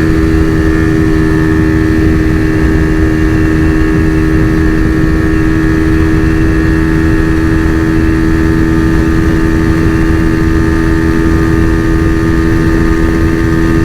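A 2012 Honda Fan 125 single-cylinder four-stroke motorcycle engine, bored out to about 170cc, is running flat out at steady high revs in fourth gear. Its pitch holds level and does not climb: the bike won't pull any further on its short gearing.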